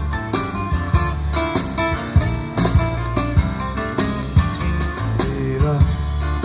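Guitar-led recorded music with a strong bass line and a steady beat, played loud through a pair of Seeburg DDS-1 "Discotheque" speakers with Altec 811 horns, driven by a tube amplifier.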